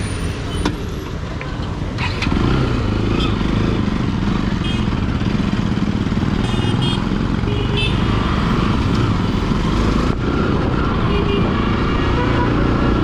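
Bajaj Pulsar motorcycle's single-cylinder engine running as the bike pulls away and rides along the road. It gets louder about two seconds in and then holds steady.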